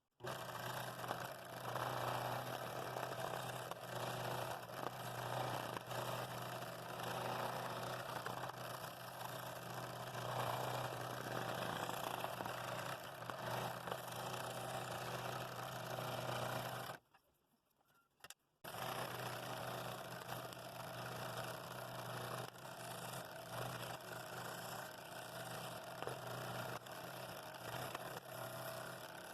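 Scroll saw running steadily with a constant motor hum, its blade cutting through stacked quarter-inch wood. The sound breaks off to near silence for a moment about 17 seconds in, then runs again.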